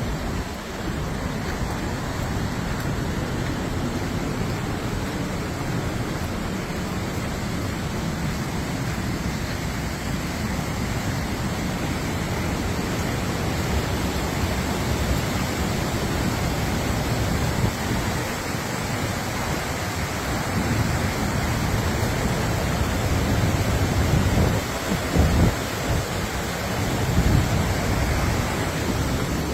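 Steady rush of a fast-flowing river or falling water in a rocky gorge, with a few low gusts of wind on the microphone near the end.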